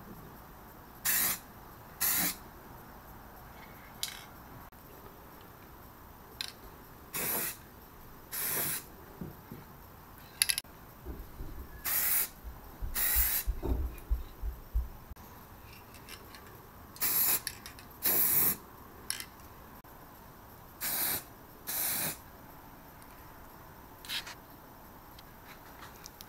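Aerosol can of yellow enamel paint spraying in short hisses, mostly in pairs about a second apart, as crosses are sprayed onto the car body's panels.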